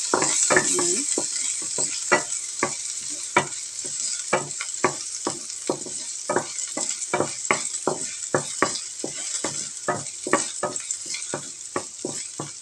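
Chopped garlic sizzling in hot oil in a nonstick frying pan while a wooden spatula stirs it. The spatula scrapes and knocks against the pan about two to three times a second.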